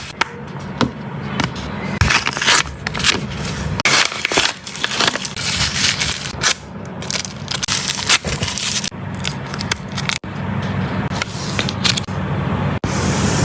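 Blind-bag wrapper crinkling and rustling as it is handled and torn open, in quick irregular crackles, over a steady low hum.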